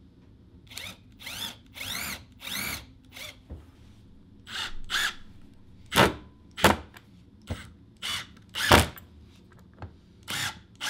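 Cordless drill-driver driving wood screws into plywood in about a dozen short bursts, the motor pitch rising and falling with each trigger pull; a few bursts are louder and sharper than the rest.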